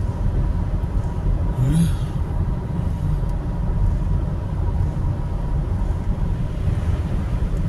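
Steady low road and tyre rumble with engine noise inside a car cruising at highway speed, with a faint steady whine. There is a brief higher sound about two seconds in.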